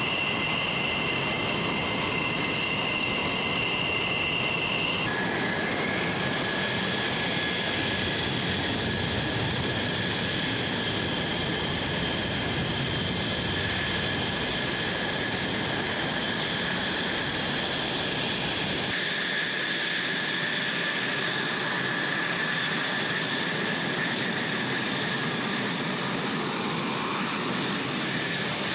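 F-16 fighter jets taxiing, their turbofan engines running at low power with a steady rushing noise and a high-pitched whine. The whine changes pitch abruptly about five seconds in and again near the twenty-second mark.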